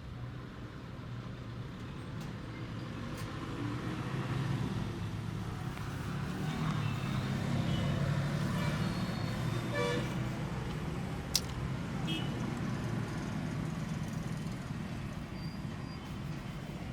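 Street traffic: a motor vehicle's engine rumble grows louder towards the middle and then fades as it passes. Brief horn toots are heard now and then, and there is a single sharp click a little after halfway.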